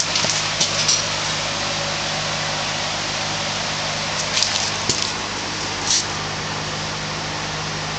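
Wood chipper driven by a 6.5 hp Harbor Freight Predator engine running steadily, with a few short sharp cracks of wood being chipped, about four to five seconds in and again about six seconds in.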